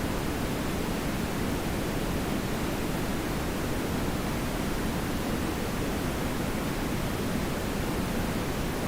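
TV static: a steady, unbroken rushing noise with no tones or changes, fuller in the low-middle range than a thin hiss.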